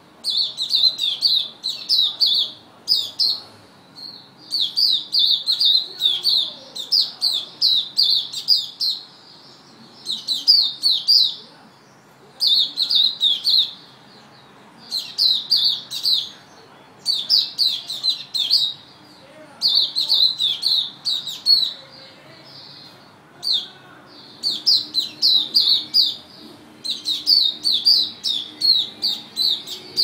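A young caged songbird chirping in repeated bursts of quick, high notes, each burst one to several seconds long, with short pauses between.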